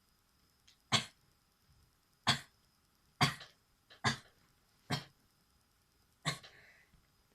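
A person sneezing in quick succession, six short sharp sneezes about a second apart, the last trailing off briefly.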